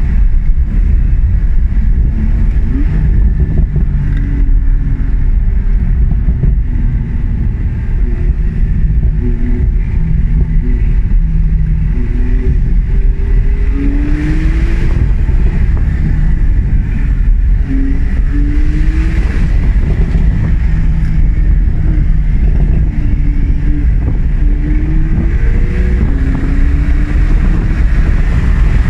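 Porsche 911 Targa 4S (991.2) twin-turbo flat-six heard from inside the cabin under hard driving, its pitch rising again and again as it pulls through the gears and revs high near the end. A steady low road rumble runs underneath.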